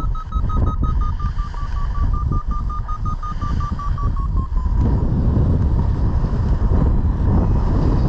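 Paragliding variometer beeping quickly at a high pitch, about six beeps a second: the climb tone of a strong thermal climb of around +8 m/s. The pitch slowly drops and the beeping stops about five seconds in, over steady wind rushing on the microphone.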